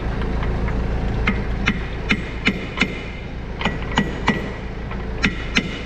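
Hammer striking steel on a hydraulic cylinder's rod assembly while it is being fitted back together: about ten sharp, ringing blows in three quick bursts, over a steady low hum.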